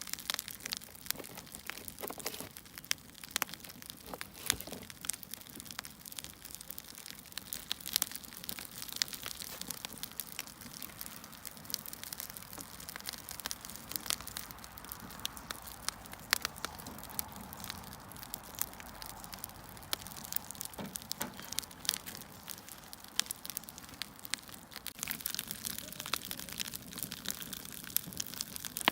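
Wood fire crackling: frequent irregular pops and snaps of burning logs over a steady hiss.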